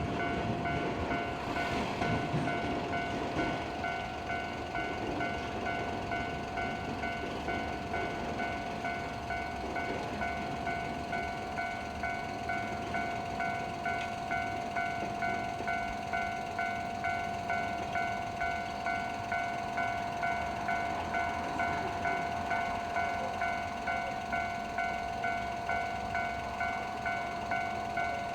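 A Japanese level-crossing warning bell ringing with a regular beat. A passing train's running noise dies away in the first few seconds.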